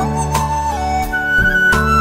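Instrumental break in a Chinese pop ballad: a held lead melody with gliding notes over a bass line and a steady drum beat, about three beats a second, with no singing.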